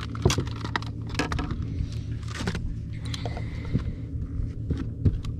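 Scattered clicks and knocks of a largemouth bass being handled and a handheld metal-clip fish scale being hooked onto its lip, over a steady low hum. Two of the knocks, about a quarter second in and near the end, are louder than the rest.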